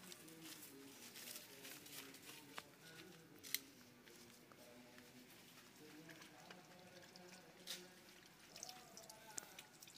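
Faint clicks and scrapes of a plastic bottle being cut with a knife and handled, then water trickling and pouring out as the bottle is tipped near the end.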